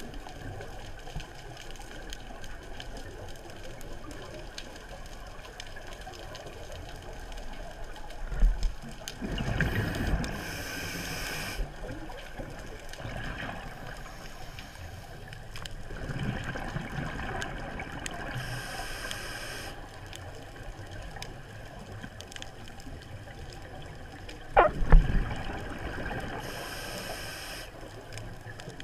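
Scuba regulator breathing heard underwater through a GoPro housing: a hissing inhale and bursts of exhaled bubbles, one breath roughly every eight seconds. The loudest bubble bursts come about eight and twenty-five seconds in.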